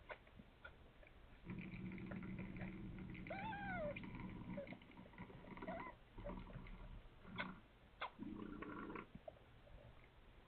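A nursing mother cat purring in several stretches, with one short mew that rises and falls about three and a half seconds in, and a couple of soft clicks a little later.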